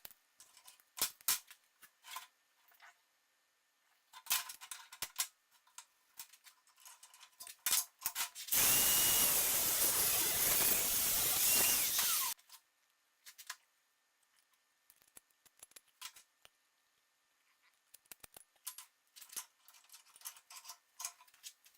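An angle grinder runs for about four seconds in the middle, a steady loud noise with a faint high whine, and cuts off suddenly. Before and after it come scattered clicks and knocks of handling the tool and workpiece.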